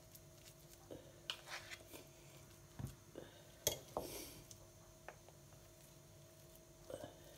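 Scattered light clicks and scrapes of a wooden spoon and a fork against a bowl and a baking tray as mashed potato is scooped and spread. A steady faint hum runs underneath.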